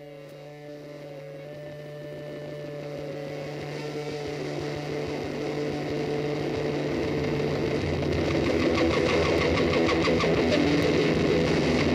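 A running engine fading in and growing steadily louder, with a fast, even pulsing from about eight seconds in.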